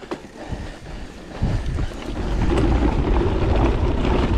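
Wind buffeting the ride camera's microphone and mountain-bike tyres rumbling over a dirt trail. The rumble turns loud about a second and a half in as the bike picks up speed.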